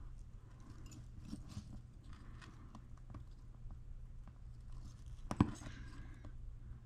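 Small clicks and rustles of hand-handled blinker parts and wiring on an electric scooter, with one sharper click about five seconds in, over a low steady hum.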